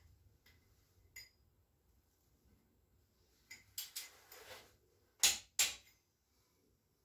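Metal hand tools clinking and knocking on an engine-building bench: a few light clicks, then two sharp metallic knocks close together about five seconds in.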